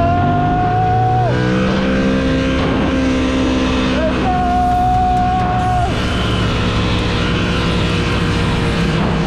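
Yamaha FZ-07 parallel-twin engine revved high and held at a steady pitch, dropping off about a second in, then held high again for a couple of seconds, over a rush of wind and road noise.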